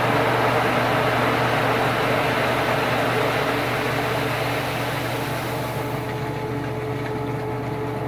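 Repaired Sears Kenmore stackable washer running its spin and pump-out: a steady motor hum under the whir of the spinning tub and water. It runs quietly, the sign that the earlier racket has been fixed; the whir thins out about six seconds in.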